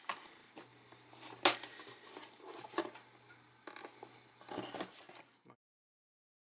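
Hands handling a white cardboard box: light scrapes and rustles of card, with a few sharp taps, the clearest about a second and a half in. The sound cuts off suddenly about a second before the end.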